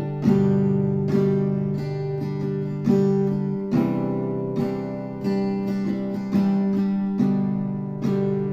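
Background music led by acoustic guitar, with chords struck about once a second and left to ring.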